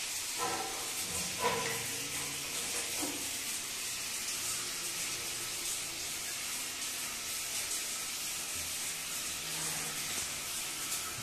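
Water spraying from a handheld shower head, a steady hiss of running water. A few brief pitched sounds come in the first three seconds.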